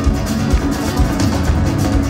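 Rumba flamenca band playing live: strummed flamenco guitars over congas and bass, with a steady beat.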